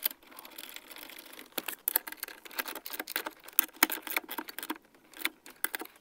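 A ratchet wrench clicking in short, irregular runs as the steering column's main support bolts are run in and snugged up. A faint rustle comes first, for about a second.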